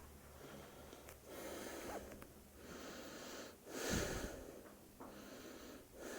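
A person breathing audibly: about four breaths, one after another, the loudest about four seconds in.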